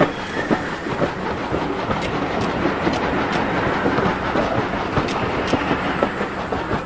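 Steam-hauled passenger train running past, carriage wheels rumbling and clicking irregularly over the rail joints.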